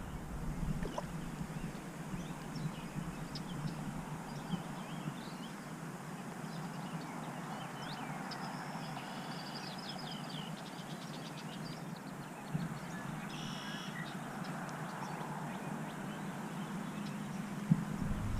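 Outdoor ambience with a steady background hiss and birds chirping, the calls clustering around the middle.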